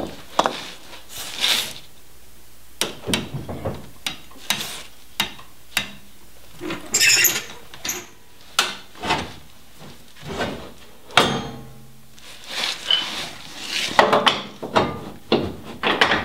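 Irregular knocks, clanks and scrapes of hand work on steel under a vehicle frame, with a floor jack and steel brackets being moved and set in place.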